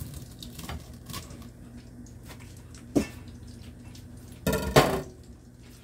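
Kitchen utensils clattering as metal tongs handle raw chicken pieces: a sharp knock about three seconds in and a louder clatter a second and a half later, over a low steady hum.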